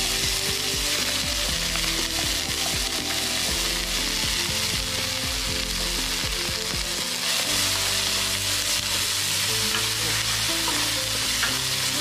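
Hot cooking oil sizzling steadily in a pan as food fries.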